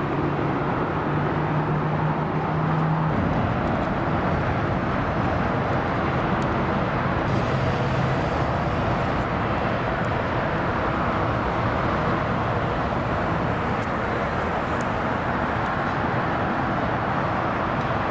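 Steady roar of jet airliner engines across an airfield, with a KLM Boeing 747-400 on its landing roll on the runway.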